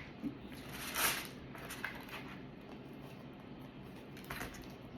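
Faint chewing and mouth sounds from someone eating soft bread, with a few small clicks and a short burst of noise about a second in.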